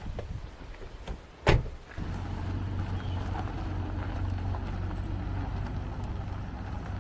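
A car door slams shut about one and a half seconds in. Then an SUV engine comes on with a steady low hum and keeps running as the vehicle pulls slowly away.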